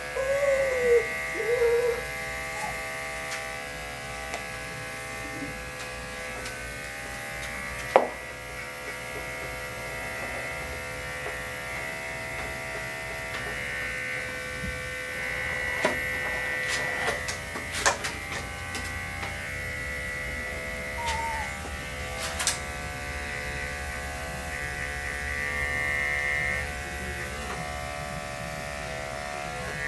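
Electric dog clippers with a 40 blade running steadily, trimming the hair between a dog's paw pads. A few sharp clicks, the loudest about eight seconds in.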